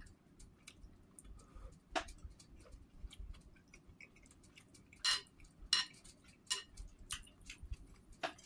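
Close-up eating sounds: a mouthful of rice porridge being chewed with small wet mouth clicks, and a metal spoon scraping and tapping in the bowl. The sounds are short, irregular clicks, with a few sharper ones in the second half.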